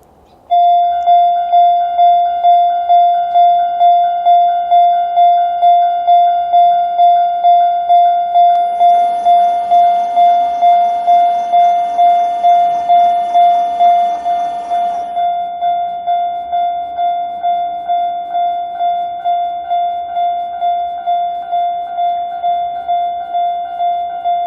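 Japanese railway level-crossing warning sounder giving the Chichibu Railway's single-tone alarm: one electronic bell tone repeating evenly a little under twice a second, starting abruptly about half a second in. For several seconds around the middle a broader rushing noise sounds under it, and the alarm is somewhat quieter after that.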